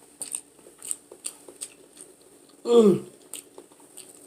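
A person chewing a mouthful of boiled egg: short wet mouth clicks and smacks, with one louder muffled grunt that falls in pitch nearly three seconds in.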